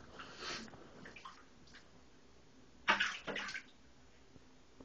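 Shallow water splashing in a bathtub as pet rats jump and scramble in it: a few short splashes, then a louder burst of splashing about three seconds in.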